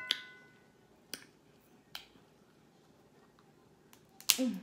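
Crab leg shell snapping and cracking in the fingers: a few sharp, separate clicks about a second apart, opening on the fading ring of a clink. Near the end comes a short hummed "mm" that falls in pitch.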